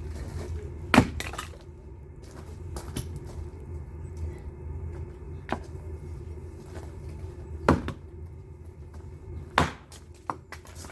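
Firewood being split, with sharp cracking blows at irregular intervals of a few seconds, the loudest about a second in, over a steady low hum.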